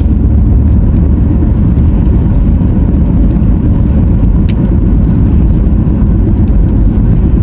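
Steady low rumble of a car driving along a road, heard from inside the cabin: road and engine noise at an even level.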